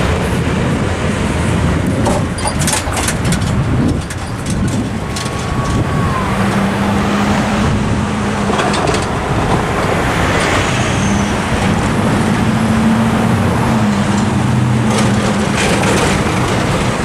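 Cars and pickup trucks driving over a railroad level crossing, with steady tyre and engine noise and a cluster of sharp knocks a couple of seconds in as tyres hit the rails. A low engine hum runs through much of the second half.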